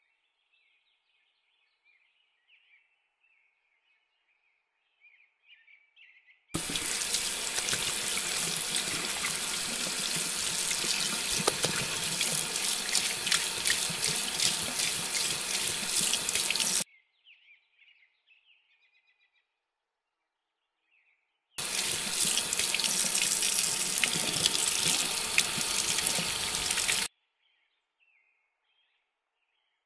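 Kitchen tap running a stream of hot water onto a sponge's plastic handle shaft and splashing into the sink, warming the shaft so it can be bent. It runs in two stretches, about ten seconds and then about five seconds, each starting and stopping abruptly.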